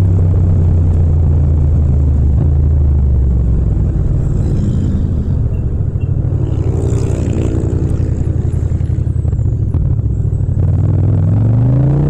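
Yamaha MT-07's parallel-twin engine from the rider's seat, slowing from cruising speed down through the gears: the steady engine note drops and turns uneven as the bike rolls off. About a second before the end it revs up again with a rising pitch.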